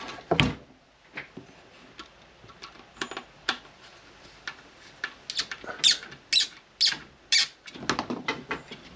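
A small screwdriver drives a screw into a 3D-printed PLA collar clamped on a varnished wooden oar: a knock near the start, light clicks, then from about five seconds a run of short squeaks and clicks, about two a second, as the screw bites into the plastic and the collar is worked on the oar.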